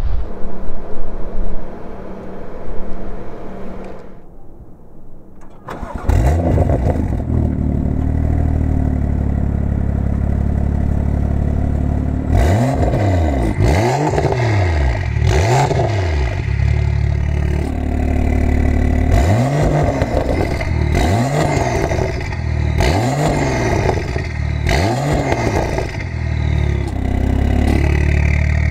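BMW M2's turbocharged straight-six through a decatted Fi valved exhaust, exhaust valves closed: it starts about six seconds in, idles, then is revved again and again, each rev rising and falling back to idle.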